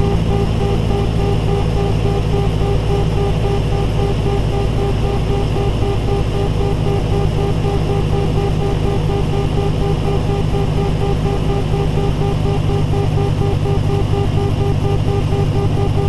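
Steady engine and cockpit drone of a light airplane in flight, with an audio angle-of-attack warning tone beeping in a steady repeating pattern over it. The tone is the sign of the angle of attack increasing as the airplane slows.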